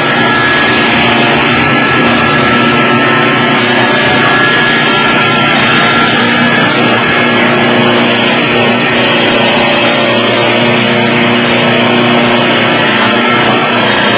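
CNC wood-turning lathe running, its two tools cutting a spinning wooden workpiece: a steady, loud mix of motor hum and cutting noise.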